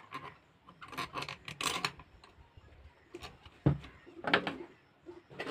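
Screwdriver tightening the screws on a stand fan motor's end covers: irregular scraping and rubbing of the tool on the screws, with a sharp knock at about three and a half seconds in.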